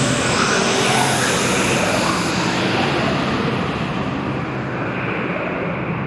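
Horror ambience sound effect: a steady, dense rushing roar with faint short tones inside it. The high hiss thins out about halfway through.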